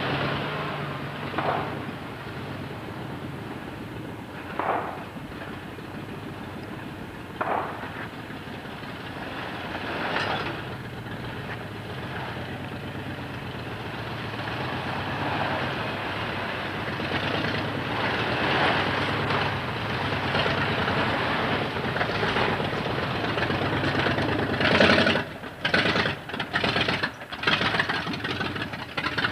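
Engines of 4x4 trail vehicles, a Jeep and an early Ford Bronco, running at low speed as they crawl up a rocky trail, with several brief louder bursts. The sound grows louder in the second half as the vehicles come close, the loudest burst coming a few seconds before the end.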